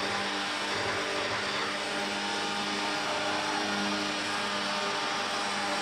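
Hovercraft engine and propeller fan running steadily as the craft skims across the water, a constant-pitch hum over a rushing noise.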